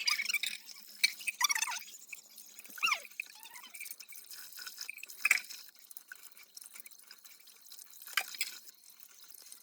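Water splashing and dripping as dishes and utensils are washed by hand in a sink. It comes in separate irregular splashes, several close together at the start and single ones about three, five and eight seconds in.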